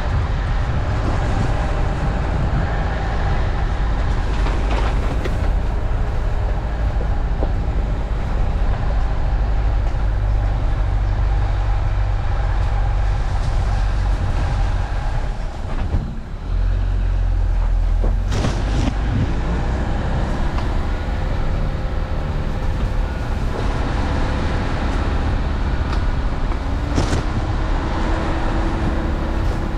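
Dacia Duster driving along a green lane: a steady engine and road rumble with a few sharp knocks. The level dips briefly about halfway through, and the engine note shifts afterwards.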